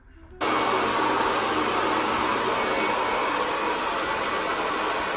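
Hair dryer switched on about half a second in, then blowing steadily.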